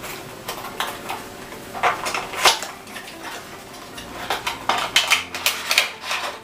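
A small cardboard box being opened and handled by hand: flaps and packaging rustling, with a run of sharp clicks and taps, the loudest about two and a half seconds in and a busy cluster over the last two seconds.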